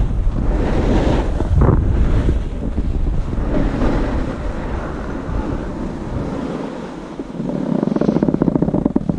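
Wind buffeting the microphone while riding down a snow slope, over the hiss of snowboards sliding on snow. Near the end it turns to a rougher, rapid scraping.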